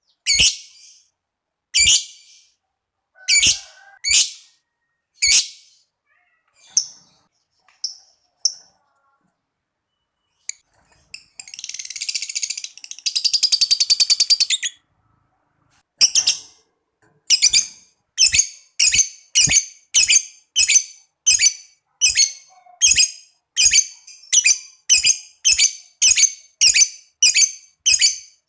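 Lovebird calling: sharp, high chirps spaced about a second apart, then a long rapid chattering trill (the 'ngekek') lasting about four seconds midway, followed by a quickening run of sharp chirps, about two a second.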